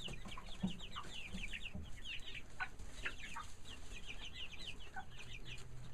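A group of young chickens peeping continuously: a steady stream of short, high-pitched cheeps overlapping one another.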